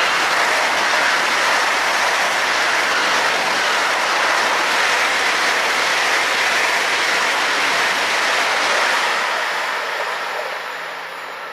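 ICE high-speed train passing close at speed: a loud, steady rush of wheel and air noise that swells in at the start and fades away over the last two seconds as the train moves off.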